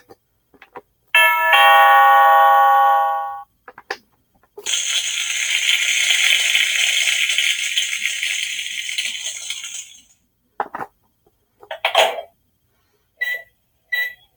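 A string of separate sound effects: first a steady chime-like tone of several pitches held for about two seconds, then about five seconds of loud hiss that fades out, then a few short clicks and knocks.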